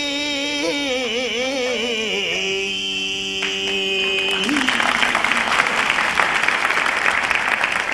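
A rōkyoku (naniwa-bushi) singer's voice in a long sung phrase with heavy wavering vibrato, settling onto a held note. About four and a half seconds in it breaks off and the audience applauds.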